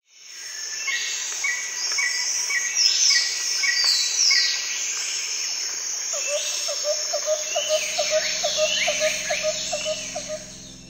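A chorus of birds calling over a steady insect hiss: many quick downward-sweeping calls and repeated high chirps, fading in at the start. From about halfway a lower call repeats about three times a second, and a low steady hum comes in near the end.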